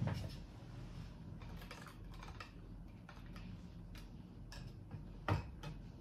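Scattered light clicks and taps of things being handled on a kitchen counter, with a louder knock at the start and another about five seconds in.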